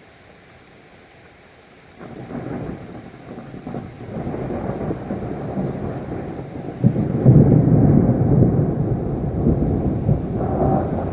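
Thunder rumbling over rain. A faint steady rain hiss is followed by a low rumble that starts suddenly about two seconds in, swells to its loudest around seven seconds in, and keeps rolling.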